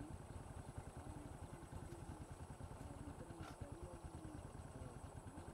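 Faint open-air ambience: a low steady rumble with a thin, steady high-pitched tone over it, and a single faint tick about three and a half seconds in.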